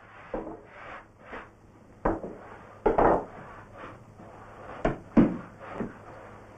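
Bread dough being kneaded by hand and thumped down on a floured wooden table: irregular thuds and slaps with softer rubbing between them, the loudest about three seconds in and twice around five seconds in.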